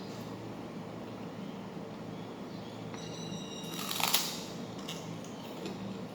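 Close eating sounds over a steady low room hum. About three seconds in there is a short high-pitched wild bird call, then a loud crunch of chewing about four seconds in.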